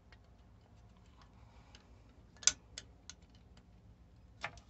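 A small hand wrench clicking and tapping on the glow plug terminal nut and bus bar of a diesel engine: a few sharp, irregular metallic clicks, the loudest about halfway through and another pair near the end.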